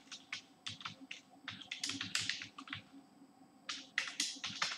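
Computer keyboard being typed on: a quick, irregular run of key clicks, a short pause about three seconds in, then a few more keystrokes.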